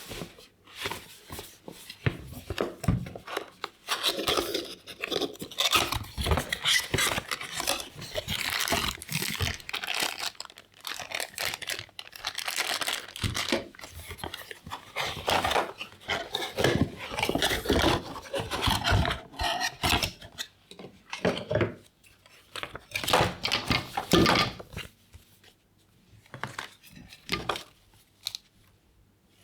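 Irregular rustling, crinkling and scraping of something being handled, with frequent clicks and short pauses, growing sparser in the last few seconds.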